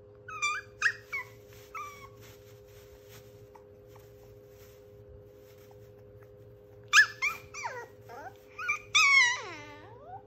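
Pomeranian puppy whining and whimpering in short high-pitched cries: a run of them in the first two seconds, then a louder cluster about seven seconds in, ending in one long whine that falls in pitch.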